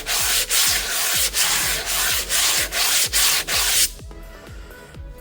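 Hand sanding a brake part with coarse sandpaper, rubbed back and forth at about three strokes a second to clean it up. The rubbing stops about four seconds in.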